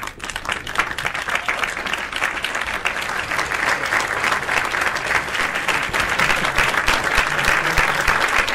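Applause: many hands clapping in a dense, steady patter that starts suddenly and keeps up without a break.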